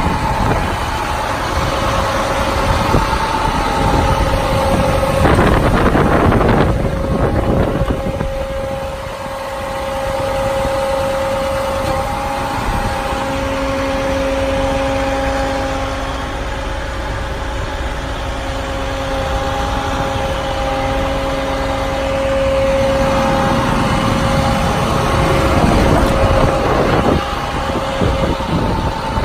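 MaxxForce DT diesel engine of a 2011 International DuraStar bucket truck running, with a steady whine over it. There is a brief hiss about five seconds in, and a lower hum joins in midway.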